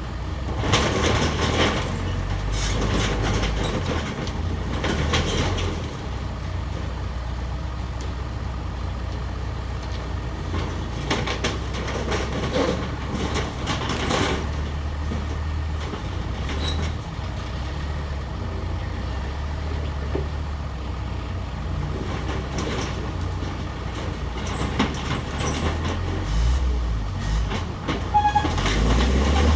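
Case 445 skid steer's diesel engine running steadily under load, with sharp cracks, knocks and clatter as the shed is pushed and broken apart, several in the first few seconds and again around twelve to fourteen seconds in.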